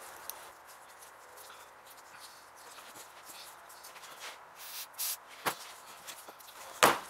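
Quiet handling of small metal ratchet parts on a steel workbench: faint rustling with a few light clicks, then two sharp knocks about five and a half and seven seconds in as parts are set down.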